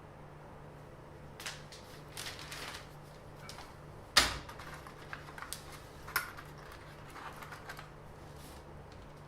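Light clicks, taps and rustles of small objects being handled, with one sharp knock about four seconds in.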